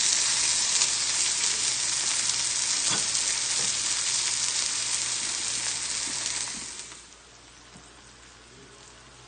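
Chicken breasts searing in a hot pan: a loud, steady sizzle that fades out about seven seconds in, leaving only a faint sound.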